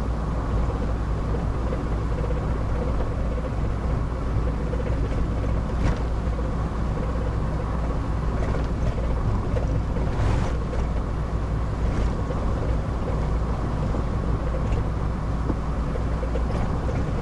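Steady engine and road rumble inside the cab of a thirty-year-old four-wheel drive cruising along, with a few faint light knocks.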